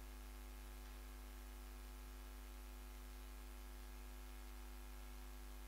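Near silence: a low, steady electrical hum with faint hiss.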